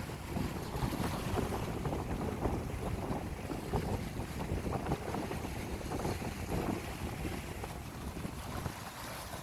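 Wind gusting across the microphone in a low, rumbling buffet, with sea waves washing on the shore underneath.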